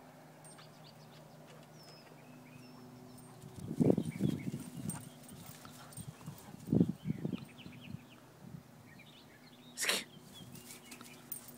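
Dogs playing, with a few short, low dog vocal sounds in two clusters, about four and about seven seconds in. A short noisy burst comes just before the end.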